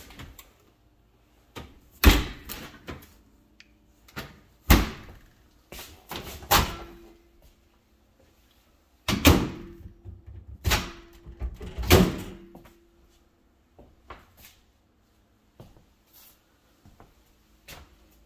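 Kitchen cabinet and appliance doors being opened and shut: a series of knocks and thuds over the first dozen seconds, several followed by a short ring, then only light taps.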